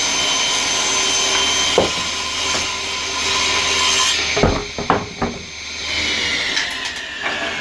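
Table saw running and ripping a thick board, with a few sharp knocks of wood about halfway through. Near the end its pitch falls as the blade winds down.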